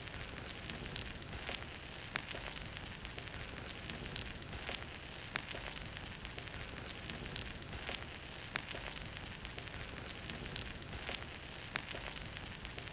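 Bonfire crackling: a steady hiss with irregular sharp snaps and pops.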